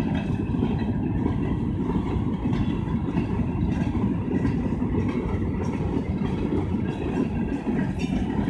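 Freight train of open-top coal hopper cars rolling past at close range. Steel wheels on the rails make a steady low rumble with faint clicks.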